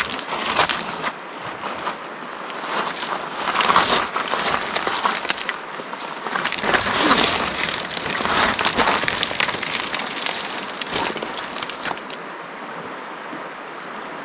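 Irregular crunching of footsteps on loose river cobbles, mixed with the crackle of dry reeds and driftwood being pushed aside, busiest in the middle and thinning out near the end.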